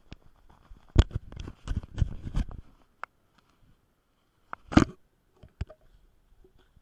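Handling noise from fingers rubbing and tapping on the action camera's housing: a run of close clicks and scrapes over the first few seconds, then one louder knock about five seconds in and a few light ticks.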